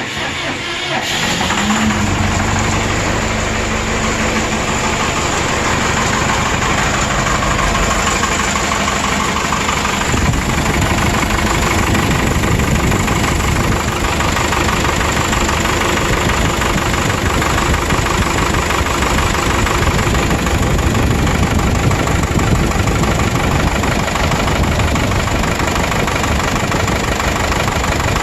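3.9-litre Cummins 4BT turbo diesel on a stump grinder running loudly. It comes up to full volume over the first couple of seconds, then runs steadily. The engine has worn piston rings, blowing by through the breather tube, and number 4 cylinder runs cold, a sign that it is misfiring.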